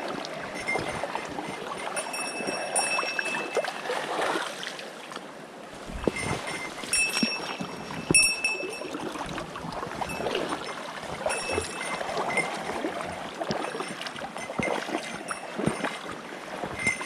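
Flowing river water, a steady rushing and trickling, with short clusters of light high metallic ringing coming and going and a few knocks around the middle.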